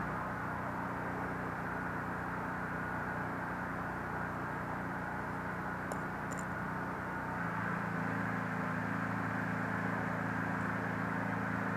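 Steady low mechanical hum over background noise, its pitch shifting slightly about seven and a half seconds in, with two faint ticks near the middle.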